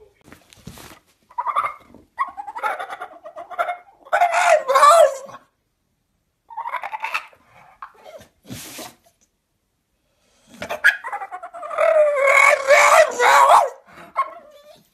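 A dog vocalizing in drawn-out, wavering howl-like yowls, in several bouts with short gaps, the longest near the end.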